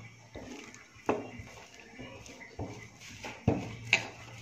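Four sharp knocks and taps of a rolling pin against the countertop as oiled paratha dough is worked out flat, with a low steady hum coming in about three and a half seconds in.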